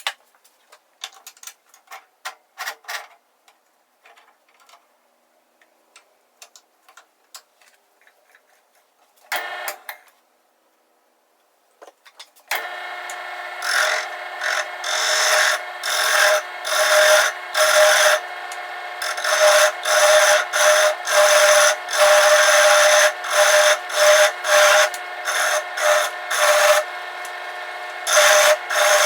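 Scattered clicks and knocks of handling. About 12 seconds in, a woodworking power tool starts and runs steadily, with a rhythmic rasping as wood is cut or rubbed against it.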